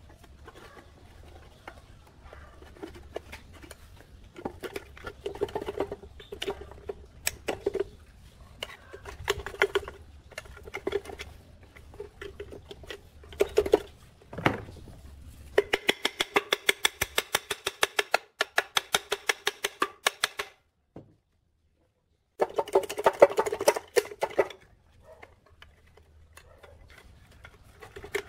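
Hand work on a small petrol engine's crankcase: metal parts knocked and scraped, then two runs of rapid, even clicking from a hand tool, the first lasting about four seconds just past halfway, the second shorter a few seconds later.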